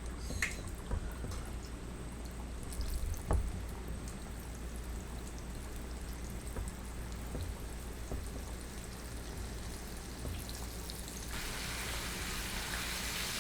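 Quiet kitchen handling with a few small clicks over a low hum. About eleven seconds in, hot deep-frying oil starts sizzling suddenly and keeps on steadily as food goes into it.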